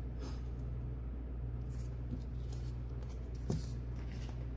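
Faint rustles and light ticks of small paper pieces being handled and set down on a craft mat, over a steady low hum; one sharper tick about three and a half seconds in.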